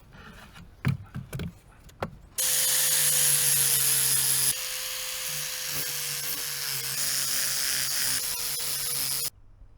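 A few light knocks and clicks, then a handheld electric power tool running steadily on wood for about seven seconds, dropping a little in level about halfway through and cutting off abruptly near the end.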